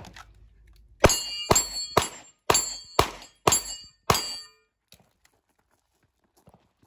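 Competition pistol fire: eight shots about half a second apart over four seconds, each followed by a ringing clang as it strikes steel targets. Then the firing stops, leaving only a few faint ticks.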